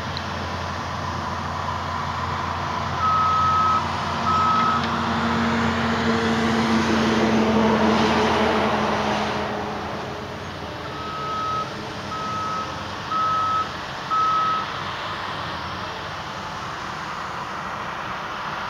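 Cessna 172 cabin noise: the engine and airflow run steadily and swell for a few seconds around the middle, then ease. A short, steady high-pitched beep sounds in groups: twice a few seconds in, then four times in the second half.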